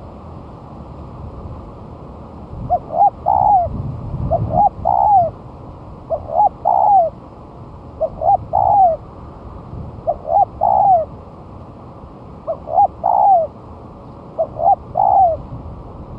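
Spotted dove cooing: seven phrases about every two seconds, each two short coos followed by a longer drawn-out coo, over a steady hiss.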